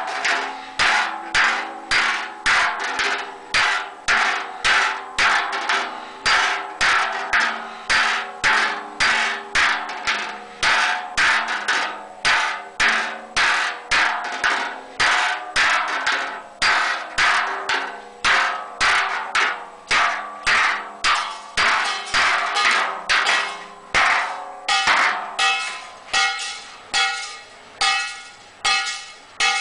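A hand hammer beats the wall of a large hand-made metal cauldron about twice a second, and each blow rings out from the metal. This is the cauldron being hammered into shape by hand. Near the end the ring of each blow grows clearer.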